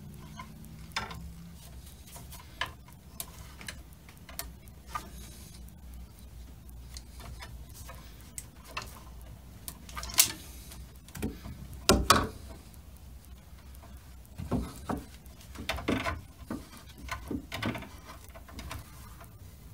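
A hand crimping tool working a crimp sleeve over twisted bare copper ground wires at a metal junction box, with scattered sharp clicks and knocks of tool and wire handling. The sharpest clicks come about ten and twelve seconds in, and a busier run of clicks follows near the end.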